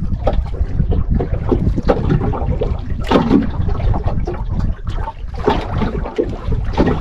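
Wind buffeting the microphone over water sloshing against a small boat's hull, in irregular gusts and splashes.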